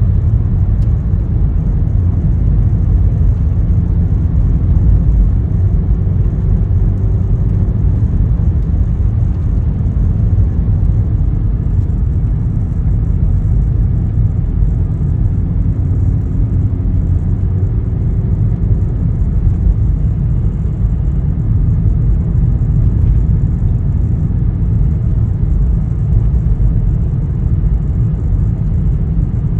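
Front-wheel drive car driving, heard from inside the cabin: a steady low rumble of engine and tyre noise, with a faint engine note drifting up twice.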